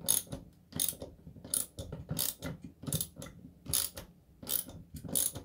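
10 mm socket ratchet clicking in repeated strokes, a short burst of pawl clicks about every three-quarters of a second, as it tightens a screw into a wall stud.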